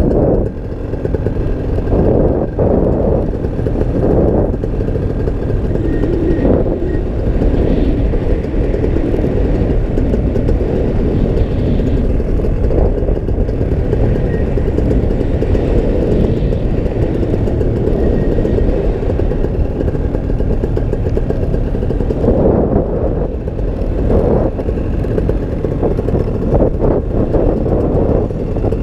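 Paramotor engine running steadily in flight, with a few brief swells in level.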